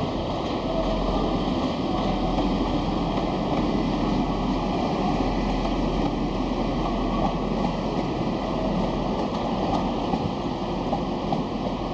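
A train running on the tracks, a steady noise with no clear start or stop and a few faint ticks.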